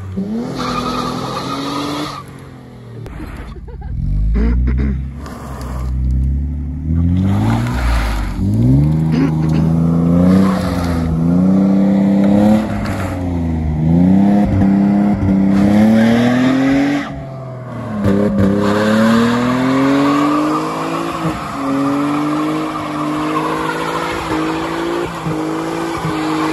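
Car engines revving hard again and again, pitch climbing and falling every couple of seconds, with wheels spinning in the snow, as a stuck BMW E46 saloon is pulled out of a snowy ditch on a tow strap. A deep low rumble comes a few seconds in, before the revving settles into repeated swells.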